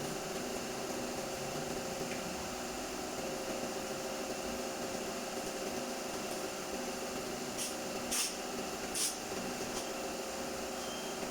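Steady machine hum holding a few even tones, with three short high hisses of air about three-quarters of the way through.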